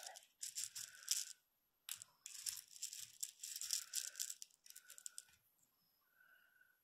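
Large seed beads rattling in a compartment of a plastic bead box as fingers sift through them to pick out beads of similar size. It comes in three bursts, the longest about two seconds, with short pauses between.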